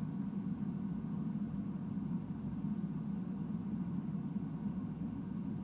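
Carlin EZ-1 gas conversion burner firing on a steam boiler: a steady low rumble of blower and flame, damped by the burner's noise-reducing cover.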